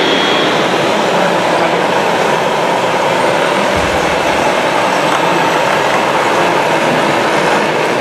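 Steady, dense running noise from radio-controlled model trucks and construction machines working a dirt site in a busy hall, with a brief low thump about four seconds in.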